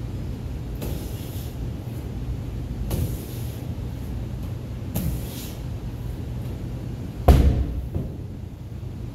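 Medicine ball thrown at a wall target, striking it with a sharp slap about every two seconds. About seven seconds in comes a much louder heavy thud as the ball is dropped onto the rubber gym floor. A steady low hum runs underneath.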